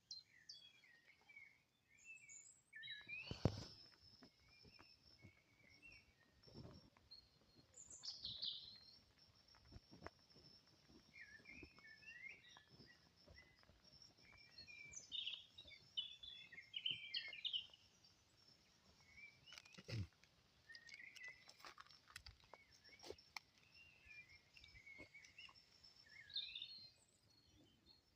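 Faint birdsong: many short chirps and twittering phrases throughout, with a few soft knocks, the clearest about three and a half seconds in and near twenty seconds.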